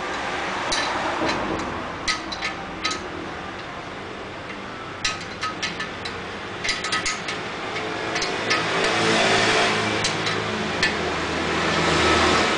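Scattered small metallic clicks and clinks of a nut, bolt and bracket being threaded and handled by hand while fitting a motorbike center stand. A low rumble swells up in the second half, loudest near the end.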